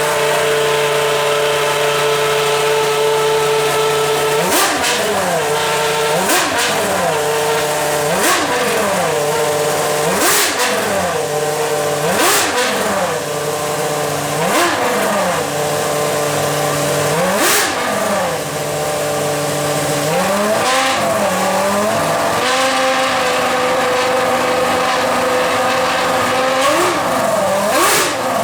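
Ferrari Formula 1 car engine idling steadily, then blipped repeatedly, roughly every two seconds: each rev rises and falls quickly and starts with a sharp crack. It settles back to a steady idle about two-thirds of the way in, then is revved twice more near the end.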